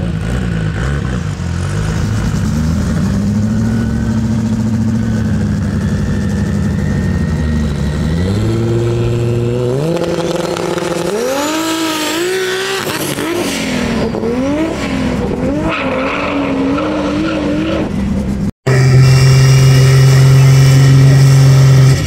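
Toyota Supra (A80) engine running with a low, slowly drifting pitch, then revving hard in several quick rises and drops as the car moves off. Near the end the sound cuts abruptly to a louder, steady engine drone.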